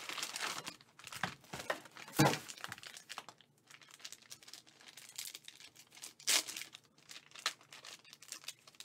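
A foil trading-card pack being handled and torn open: crinkling wrapper with sharp ripping crackles, the loudest about two seconds in and again about six seconds in.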